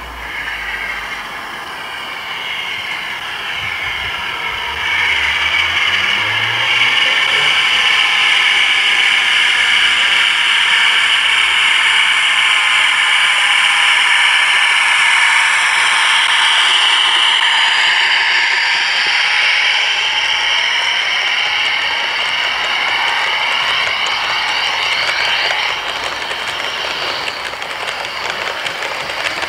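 Model diesel locomotive with a DCC sound decoder passing by and playing its diesel engine sound through its small speaker, with the train running along the track. It grows louder from about five seconds in and eases off near the end as the coaches go by.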